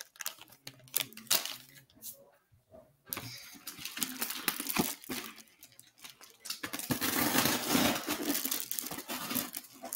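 Plastic fishing-bait packaging crinkling and rustling as it is handled and pulled at: a few scattered crackles at first, then steady crinkling from about three seconds in, loudest near the end.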